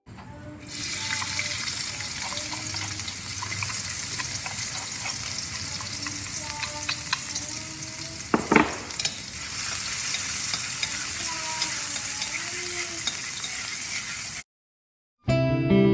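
Food frying in hot oil in a pan: a steady sizzle with small crackles. There is a sharp clack, like a utensil against the pan, about eight and a half seconds in. The sizzle cuts off abruptly near the end.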